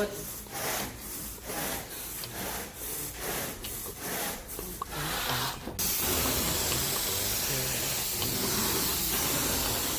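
Carpet being scrubbed by hand with a rake or brush, rhythmic rubbing strokes about twice a second. About six seconds in the strokes stop abruptly and a steady spraying hiss begins, the carpet-cleaning wand at work.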